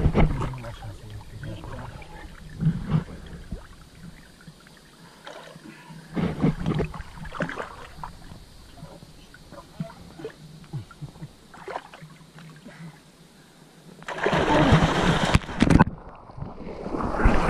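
Shallow river water splashing and sloshing around people handfishing, with scattered small splashes and a loud burst of splashing about fourteen seconds in.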